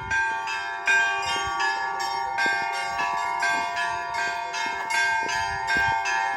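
Church bells ringing, a quick continuous run of strikes on several bells with their tones overlapping and sustaining.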